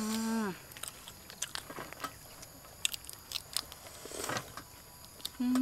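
Close-up eating sounds: a person biting into and chewing a curried shrimp, with many small crunches and clicks. A short hummed vocal sound comes right at the start, and a louder, longer one near the end; each falls in pitch as it stops.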